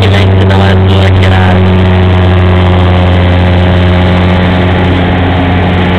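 Turboprop aircraft engine and propeller drone heard from inside the cabin in flight: a loud, steady low hum at an even pitch.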